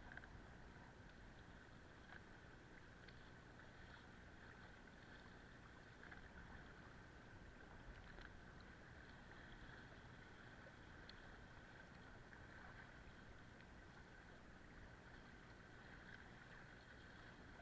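Near silence: a faint, steady hiss of wind and water, with a few faint taps.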